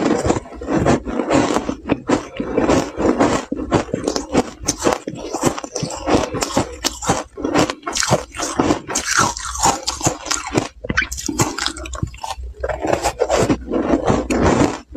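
Ice cubes dusted with matcha powder being chewed close to the mouth: dense, irregular crunching, several bites a second.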